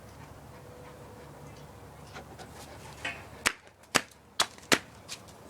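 A quick run of sharp clicks and knocks starting just past the middle: four loud ones within about a second and a half, with a couple of fainter ones around them, over a faint low background hum.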